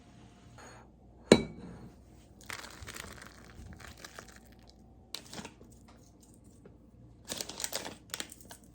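A sharp knock about a second in, as of an object set down on a hard surface, then several bouts of crinkling and rustling as material is handled.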